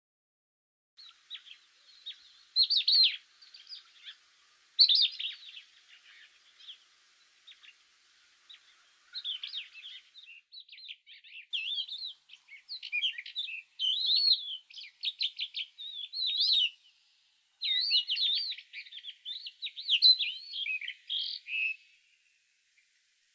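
Songbird singing: a run of short chirps and quick warbling trills that grows busier and more continuous in the second half, breaks off briefly about two-thirds of the way through, and stops shortly before the end.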